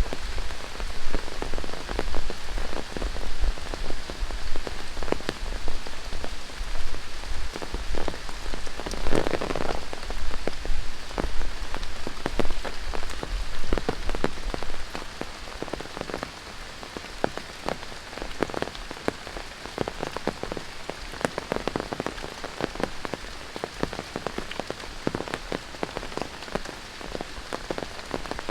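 Rain falling in a tropical rainforest: a steady hiss with many separate close drop hits. About halfway through, the rain becomes clearly quieter.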